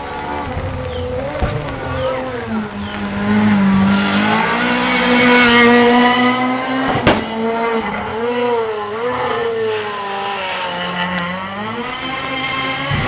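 Rally car engine at high revs approaching and passing at speed, loudest about halfway through, then revving up and down as it pulls away. A single sharp bang sounds about seven seconds in.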